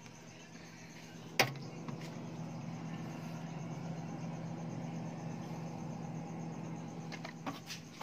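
LG no-frost refrigerator running with a steady low hum while it cools. There is a sharp knock about a second and a half in and a few lighter knocks near the end, from handling of the doors and shelves.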